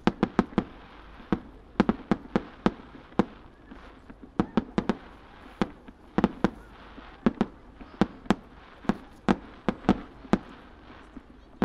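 Star mine fireworks barrage: aerial shells bursting one after another, sharp bangs a few times a second at uneven spacing, each trailing off briefly.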